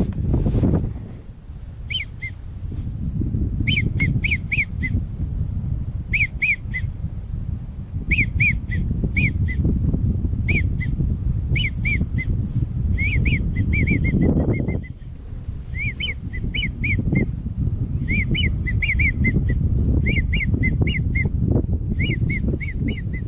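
Wigeon whistling: short, high whistled notes in quick groups of three to five, repeated every second or two, over a low rumble of wind on the microphone.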